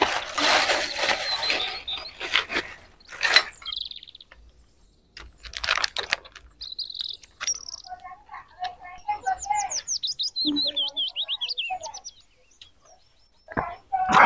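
Plastic bag crinkling and rustling as crackers are taken out of it, with a few sharp clicks. Later, a bird chirps in a quick run of high, falling notes.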